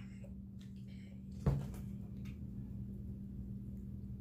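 A single sharp knock about a second and a half in, with a few faint clicks around it and a steady low hum underneath.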